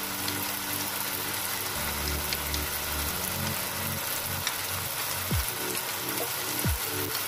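Vegetables and sauce sizzling in a pan on the stove, a steady frying hiss, with a few light clinks of a metal spoon stirring cornflour slurry in a ceramic bowl.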